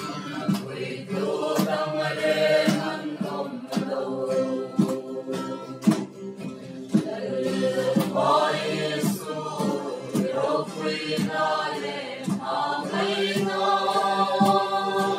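A group of men and women sing a hymn together in unison to a steady beat, about two strokes a second, from a hand-beaten Mizo khuang barrel drum and handclaps, with an acoustic guitar under the voices.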